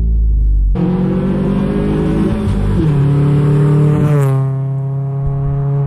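Nissan Sentra's four-cylinder engine accelerating through a 2.5-inch single exhaust with a Flowmaster FX muffler. The revs climb, drop sharply at a gearshift about three seconds in, then climb again.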